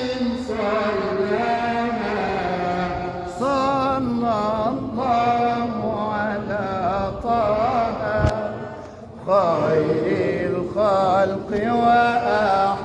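A solo male voice chanting an Islamic ibtihal (devotional supplication), holding long melismatic notes with rapid wavering ornaments. The phrases break off briefly a few times in the second half.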